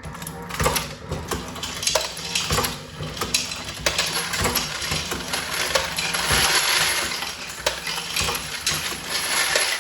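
Dillon Precision RL1100 progressive reloading press driven by a Mark7 AutoDrive, cycling 9mm rounds: a steady motor hum under a constant run of metallic clinks and clatter from brass cases and cartridges moving through the machine.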